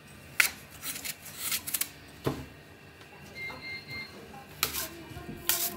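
A knife slicing through a crisp apple held in the hand: a handful of short, sharp snaps spread out, the loudest about half a second in.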